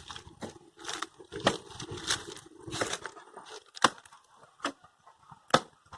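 A hoe breaking into dried clay and prying out embedded wood: about three seconds of crunching and scraping, then three separate sharp knocks.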